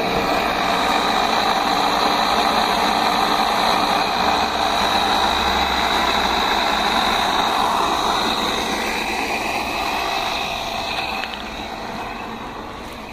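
Air-conditioner compressor rigged to pump well water, running steadily with a dense hiss of moving air and water and a steady high whine. It gets quieter near the end.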